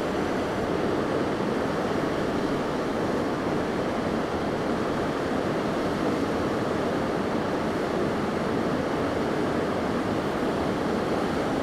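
Steady rushing of a large, fast river running over rapids, an even wash of water noise with no breaks.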